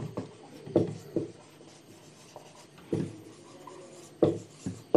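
Marker pen writing on a whiteboard: a series of short rubbing strokes, with a pause of a second or two in the middle.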